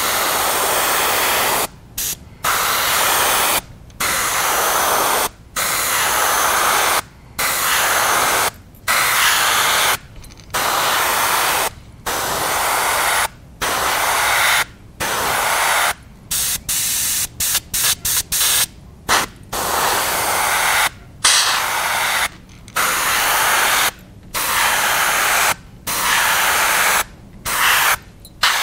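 Gravity-feed airbrush spraying in repeated passes: bursts of air hiss about a second and a half long, each cut off by a brief silence as the trigger is let go, with a run of quick short bursts about halfway through and again near the end.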